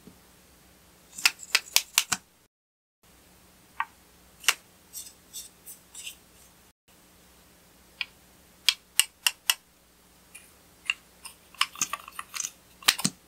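Sharp plastic clicks and snaps of lipstick and lip-gloss caps and tubes being pulled open and handled, coming in several quick clusters of a few clicks each.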